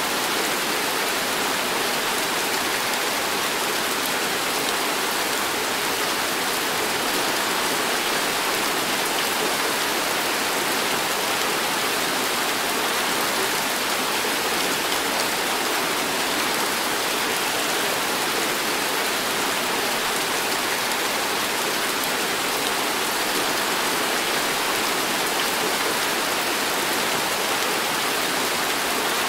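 Heavy tropical rain pouring down in a steady, dense hiss that does not let up.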